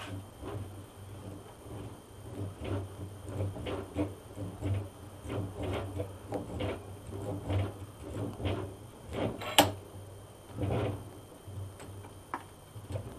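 A steel bench vise being cranked by its handle, the screw and slide bar working in a steady rhythm of scraping strokes about two a second, with one sharp metal clack about two-thirds of the way in. The vise has just been greased and is being worked to free up a little remaining drag.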